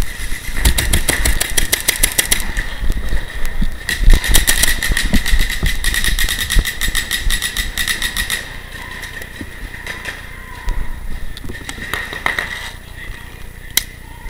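Paintball markers firing in rapid streams of many shots a second, two long runs in the first eight seconds, then thinning to scattered single shots.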